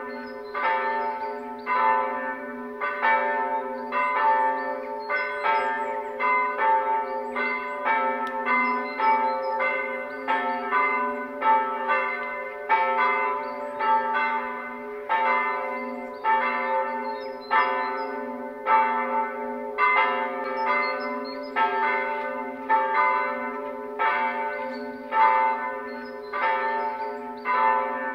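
Church bells ringing for the start of a service: several bells striking in an uneven, overlapping pattern at about one stroke a second, each stroke ringing on over a steady low hum.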